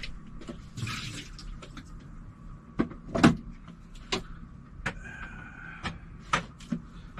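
Irregular knocks and clunks of things being handled and set down, the loudest about three seconds in.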